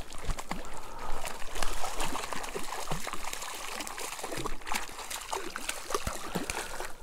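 Hooked cutthroat trout thrashing and splashing at the water's surface near the bank, in irregular bursts that are loudest about a second or two in. Near the end a landing net dips into the water to scoop it.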